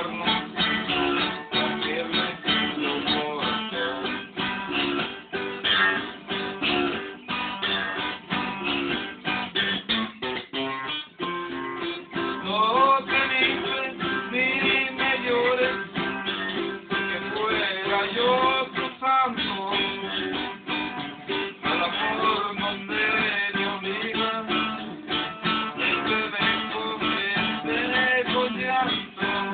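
Guitar music: a plucked guitar played in fast, closely repeated strokes, with a short dip about ten seconds in.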